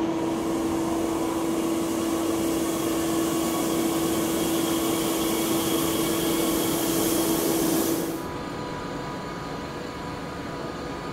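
Electric railway running noise: a steady hum with one strong tone and a high hiss as a double-deck regional train pulls away. It cuts off sharply about eight seconds in, giving way to the quieter steady hum of a Talent 2 electric multiple unit standing at the platform.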